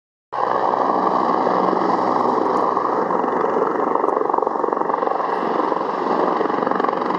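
Steady engine drone that holds level and unchanging, starting abruptly just after the beginning.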